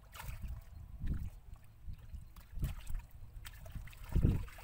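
Shallow muddy water splashing and sloshing as hands and legs move through it, groping for fish in the mud. Irregular splashes, the loudest near the end, over a steady low rumble.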